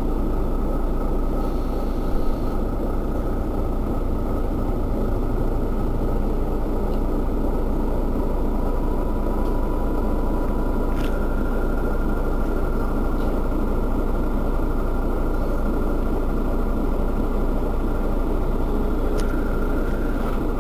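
Rear-mounted diesel engine of a Mercedes-Benz Citaro Facelift city bus idling steadily at a standstill, with a faint steady whine over the low engine rumble.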